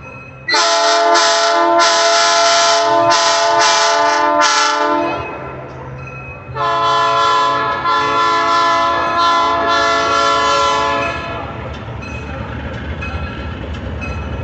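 Diesel locomotive sounding two long horn blasts, the second starting about a second and a half after the first ends. After the second blast the engine rumbles on as the locomotive passes close by.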